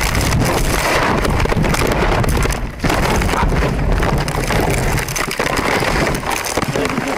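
A car crashing, heard from inside the cabin: loud rushing and rumbling, thick with crackling and clattering as glass and debris fly about, easing off near the end.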